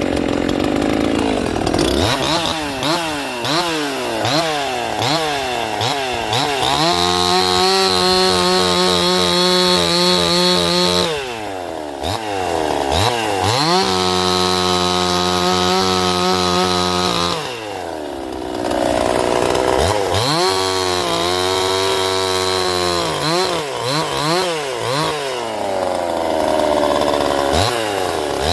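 Ported two-stroke Husqvarna 50 chainsaw, running rich after an intake air leak was fixed. It is blipped up and down several times, then held at full throttle cutting wood for about four seconds at a time, twice, dropping back between.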